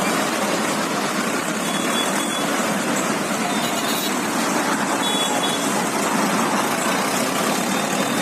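A long column of tractors driving past, their engines and traffic making a steady, dense noise.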